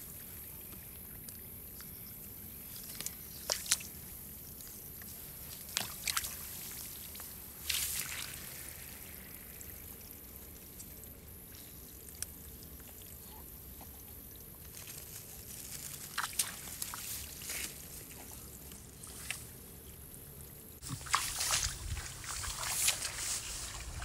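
Water sloshing, pouring and trickling in short irregular bursts: a few splashes spread through, then a busier, louder run of sloshing near the end.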